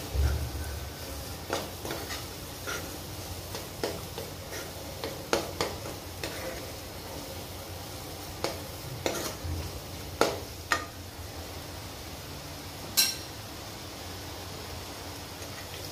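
Steel spoon stirring and scraping a thick masala paste frying in a non-stick kadai, with irregular scrapes and taps against the pan over a steady low sizzle. There is a sharper knock near the end, after which only the sizzle goes on.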